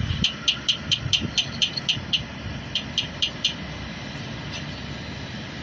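A quick run of sharp, high clicking taps, about four a second: nine in a row, then four more after a short pause, over a steady low rumble. They are presented as deliberate knocking on the wall early in the morning.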